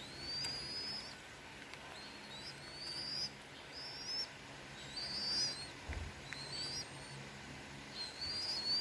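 A bird calling: a series of short, high, rising chirps, about seven over the stretch, the loudest about halfway through and at the end.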